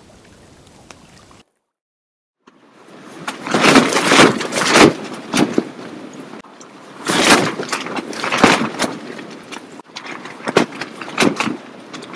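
After a second and a half of faint steady ambience and a brief cut to silence, strong wind gusts buffet a tent and the tarp over it, heard from inside the tent. The fabric flaps and snaps in loud surges that build and fade every few seconds.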